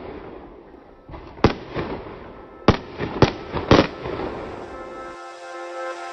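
Fireworks going off: four sharp bangs in the middle, with smaller pops and crackling between them. Soft music fades in near the end.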